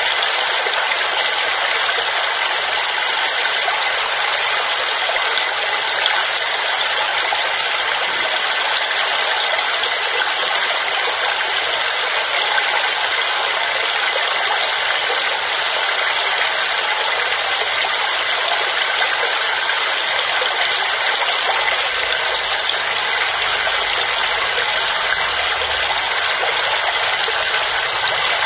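Waterfall: a steady, unbroken rush of falling water, bright and hissy with little deep rumble.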